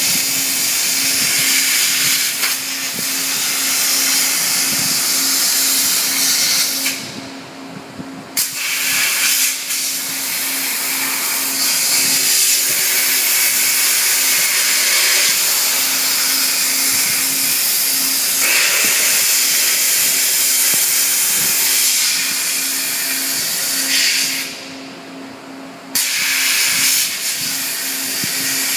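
A 5-axis abrasive waterjet's high-pressure jet hissing loudly as it cuts an aircraft door frame, over a steady low hum. The hiss drops out briefly twice, about seven seconds in and again near the end.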